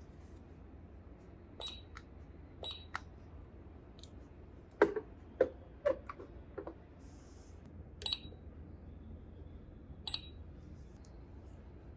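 Small plastic toy pieces being handled, giving scattered sharp clicks and light taps, a few of them with a short high ring; the loudest three come together about five to six seconds in.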